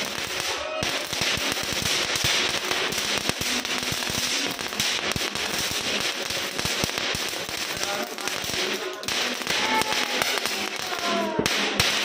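A ground firework spraying sparks, with a steady crackling hiss made of many tiny pops.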